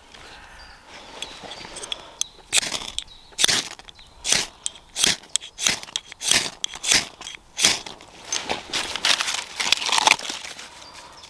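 Footsteps crunching over dry twigs and leaf litter on a woodland floor, about a dozen crunches at walking pace that start about two seconds in and stop near the end.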